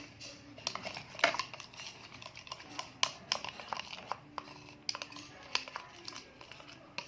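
Irregular clicks and light knocks, a few a second, of a utensil stirring glue and colouring together in a container.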